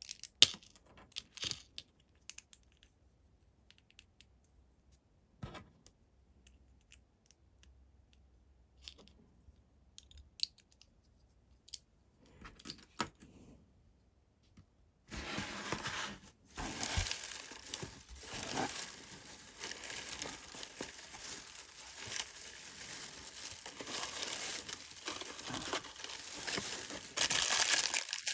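Sparse small clicks and taps of items being handled, then, about halfway in, continuous tearing and crinkling as blind-box packaging is ripped open, louder near the end.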